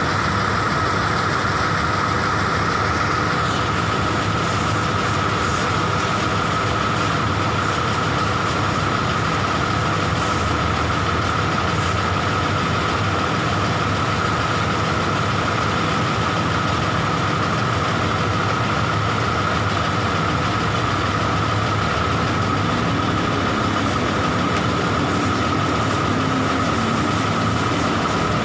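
A coach bus's diesel engine idling steadily with its rear engine hatch open, an even rumble under a steady high whine.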